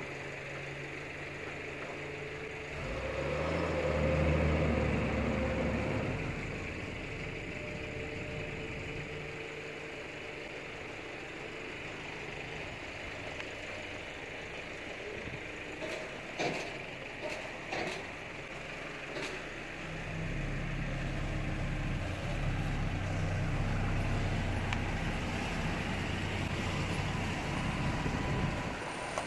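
Motor vehicle engines on a street. One engine swells and fades about three to six seconds in, and a heavier, truck-like engine runs louder through the last nine seconds. A few sharp clicks come a little past halfway.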